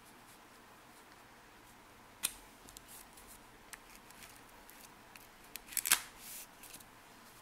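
Quiet handling of nail-stamping tools on a metal stamping plate: a sharp click about two seconds in, a few light ticks, then a cluster of clicks and a brief scrape near the end as a plastic scraper card is drawn across the plate to clear off the excess polish.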